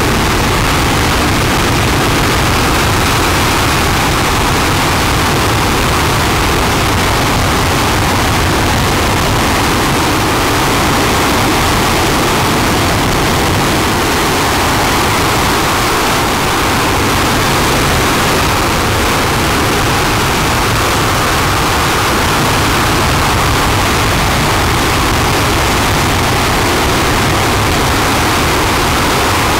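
RS-25 liquid-hydrogen/liquid-oxygen rocket engine running steadily during a static hot-fire test: a loud, even rushing noise that holds without change.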